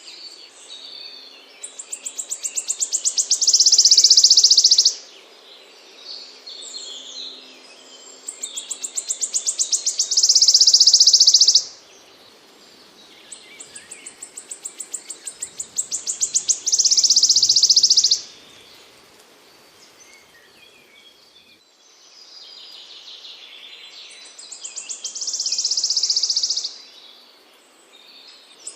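A small songbird singing the same high phrase four times: a run of quick ticking notes that speeds up and swells into a loud buzzing trill, with softer twittering between the phrases.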